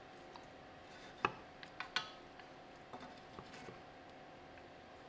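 Wooden spatulas scraping and knocking against a frying pan while working loose a thin omelette that is sticking to it, with sharp taps about a second and two seconds in and a few lighter ones after. A faint steady hum runs underneath.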